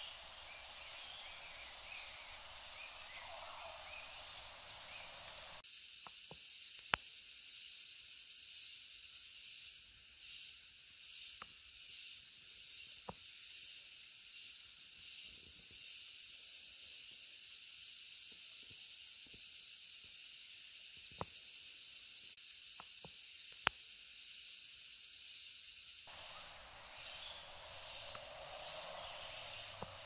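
Steady hiss of water running in a shallow forest stream, its lower part dropping away for most of the middle, with a few sharp clicks scattered through it, two of them loud.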